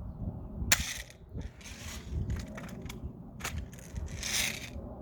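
Daisy Powerline 340 spring-air BB pistol being handled, cocked and fired: a sharp snap about a second in, then several short clicks and rasping mechanical scrapes.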